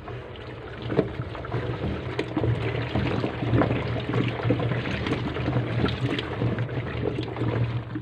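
Water sloshing and splashing as a hand swirls cleaning solution around inside the tub of a top-loading washing machine.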